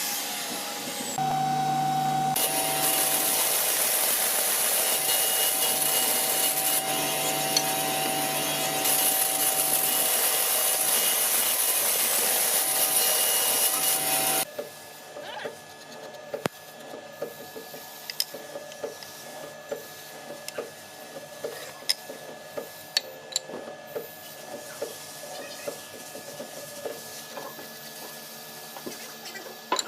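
A power tool running steadily on wood for about thirteen seconds, stopping abruptly about halfway through. Then quieter hand work on wood, with light scraping and many small irregular taps.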